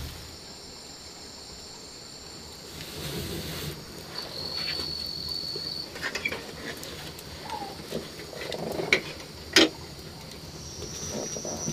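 Night insects trilling in steady high-pitched bursts that start and stop, with scattered knocks and clicks of things being handled, the sharpest about two-thirds of the way in.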